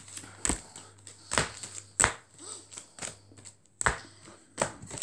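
Trading card booster packs being dealt out by hand into two piles, each pack set down with a sharp tap, about five taps at uneven intervals.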